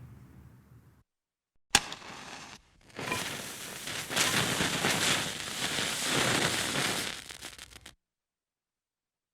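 The last rumble of an explosion fades out in the first second. A match is then struck with one sharp scratch and flares, and the lit fuse hisses and crackles steadily for about five seconds before cutting off.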